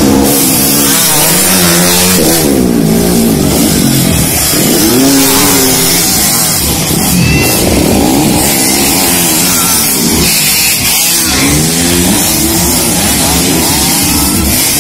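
Dirt-track racing motorcycles revving hard. The engine pitch climbs and falls again and again as the bikes accelerate, shift and pass.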